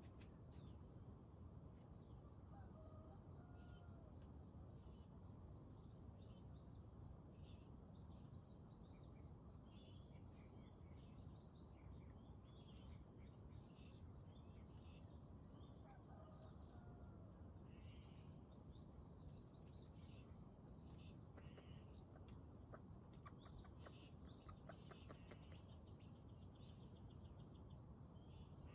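Faint field ambience: a steady high insect trill runs throughout, with scattered short bird chirps over a low hiss.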